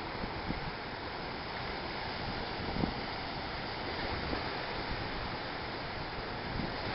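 Ocean surf washing against a rock breakwater, a steady rushing wash mixed with wind on the microphone, with a brief thump about three seconds in.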